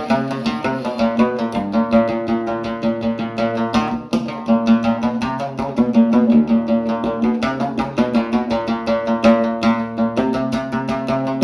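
Background music played on a plucked string instrument like a guitar, with quick picked notes over a steady low drone.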